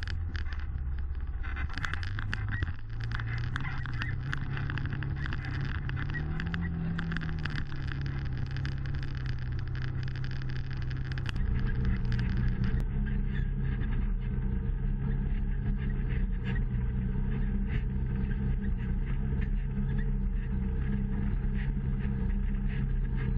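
Side-by-side UTV engine running as the machine drives a rough trail, with rattling and knocking from the cab and a brief rise and fall in engine pitch. About halfway through there is a sudden change to a steadier, slightly louder engine sound.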